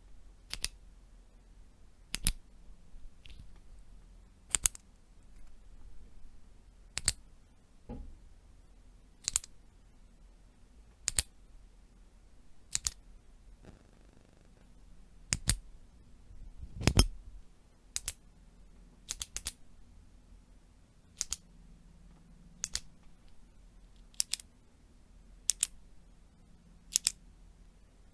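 Retractable pen clicked over and over, a sharp click or a quick double click every one to two and a half seconds.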